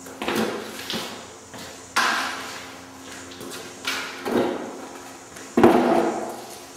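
Four sudden knocks or bumps, spaced about one and a half to two seconds apart, each fading out over about half a second, over a faint steady hum.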